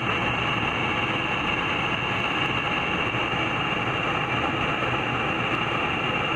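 Airliner cabin noise in flight: a steady rush of engine and airflow with a thin high whine running through it.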